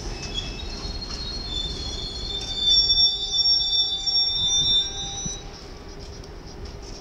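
Ballast hopper wagons of an infrastructure freight train rolling through curved track, their wheels squealing on the rails in several high, steady tones over a low rumble. The squeal sets in about a second in, is loudest around three to five seconds, and dies away shortly after.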